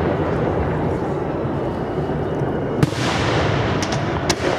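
Aerial firework shells bursting over a continuous rumbling background. There is one sharp bang nearly three seconds in and a few quick cracks shortly before the end.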